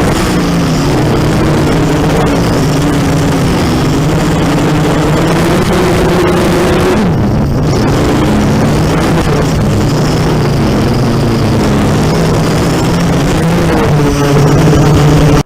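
Racing quadcopter's brushless motors and propellers buzzing steadily, the pitch rising and falling as the throttle changes through the flight, with a rushing noise of air.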